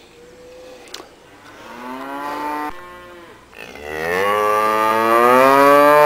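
A cow mooing twice: a shorter moo about two seconds in, then a longer, louder moo from near the four-second mark that rises in pitch as it goes on.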